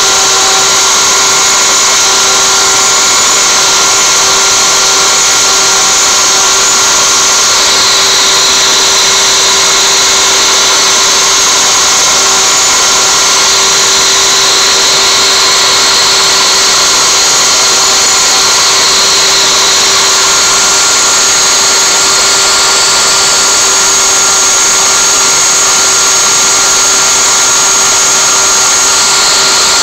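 CNC router spindle running at 24,000 rpm, its 1/8" solid carbide up-shear spiral bit milling knotty alder: a steady high whine over continuous cutting hiss.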